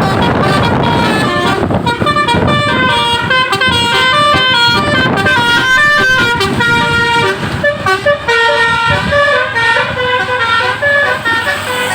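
Bus Basuri telolet horn playing a tune: a quick run of pitched horn notes stepping up and down, over a low rumble that is strongest in the first half.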